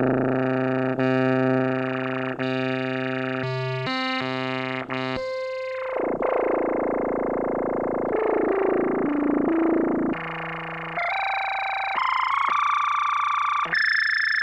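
Farfisa Pergamon analog organ's synthesizer section playing a run of buzzy sustained single notes. In the middle, the tone sweeps and some notes bend in pitch, and higher held notes follow near the end.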